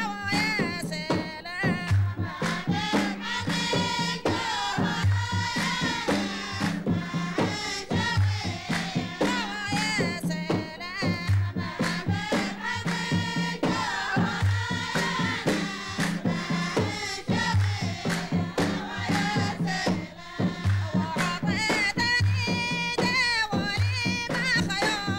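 Dhofari folk music: voices singing over rope-laced barrel drums beating a steady, repeating rhythm.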